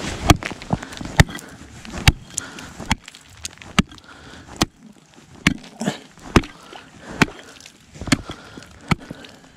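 Repeated sharp blows into thin lake ice, about a dozen strikes at an uneven pace of roughly one a second: the ice being chopped through to check its thickness and whether it will hold.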